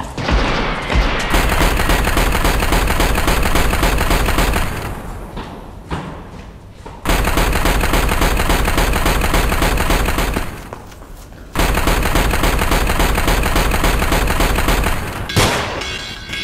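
Automatic rifle fire in three long sustained bursts of rapid shots, separated by short pauses.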